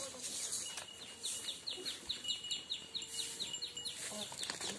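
A bird calling: a rapid series of short, high, falling chirps, about five a second, lasting around three seconds.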